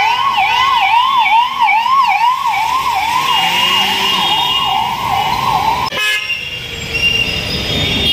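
Ambulance siren yelping, a fast rise and fall about two to three times a second, with a second, higher-pitched siren overlapping for the first couple of seconds. The siren cuts off suddenly about six seconds in, leaving road traffic noise.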